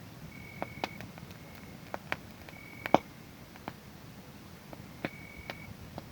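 Wood fire crackling with irregular sharp pops, the loudest about three seconds in. A cricket chirps now and then in short, steady, high-pitched trills of about half a second.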